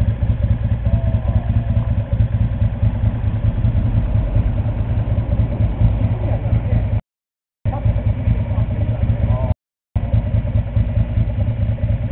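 Ducati 400 SS Supersport's air-cooled V-twin idling steadily with a fast, even beat. The sound cuts out twice briefly, once about seven seconds in and again near nine and a half seconds.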